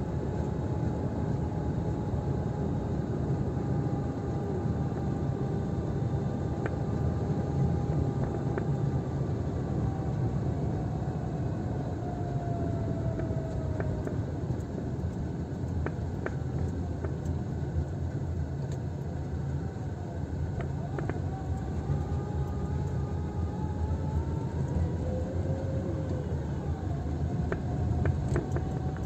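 A car driving on a wet road, heard from inside the cabin: a steady drone of engine and tyre noise, with a faint whine that slowly drifts in pitch.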